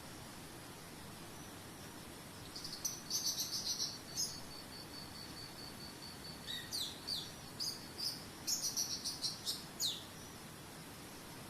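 A songbird singing two bursts of quick chirps and falling whistles, the first about three seconds in and the second from about six and a half to ten seconds in. Under it run a steady, pulsing insect trill like a cricket's and an even hiss of running water.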